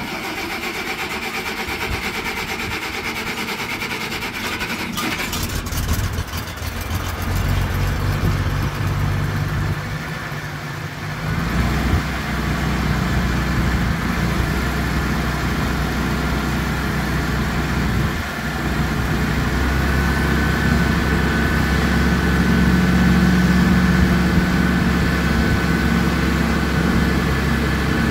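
Allis-Chalmers D19 tractor's six-cylinder engine starting up and running. About eleven seconds in it steps up to a louder, deeper, steady run that holds to the end.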